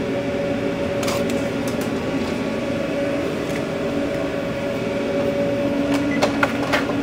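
Steady mechanical hum of a food truck's kitchen machinery, with a held low drone, and a few light clicks and knocks about a second in and again near the end.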